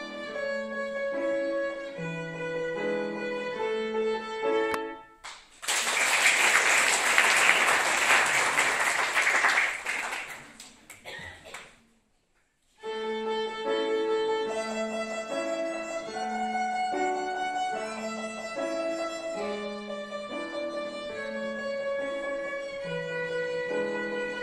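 Violin with piano accompaniment playing. About five seconds in, the music gives way to a loud stretch of noise lasting about six seconds, which fades into a brief silence. Then the violin and piano start again.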